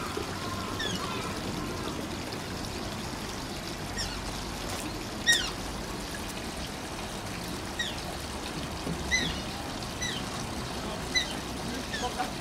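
Asian small-clawed otter giving short, high-pitched squeaking chirps, each falling in pitch, about seven of them a second or two apart, the loudest about five seconds in. Steady trickling of running water underneath.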